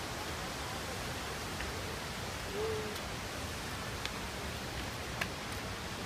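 Steady rushing of the Itiquira waterfall, an even hiss at a constant level. About two and a half seconds in, a short low hooting call rises and falls once, and two sharp clicks follow in the second half.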